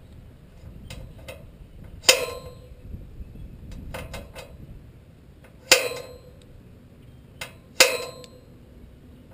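A center punch marking a hole in a steel trailer frame: three sharp metallic strikes, each ringing briefly, with a few lighter clicks between them.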